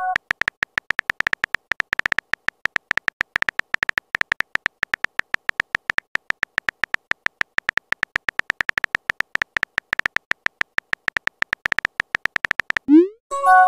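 Texting app's keyboard typing sound effect: a rapid, even stream of short synthetic clicks as a message is typed out letter by letter. Near the end a short rising swoop and a brief chime play as the message is sent.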